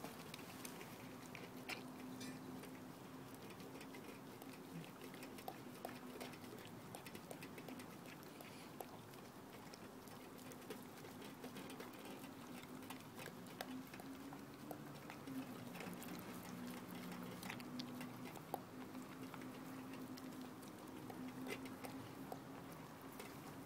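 A dog chewing raw fish: irregular small clicks and crunches from its jaws and teeth, with a faint steady hum underneath.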